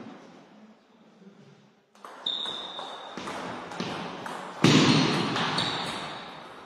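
Table tennis rally: the plastic ball clicking off bats and table about twice a second, each hit echoing in the sports hall. About halfway through comes a much louder burst that rings on in the hall's echo.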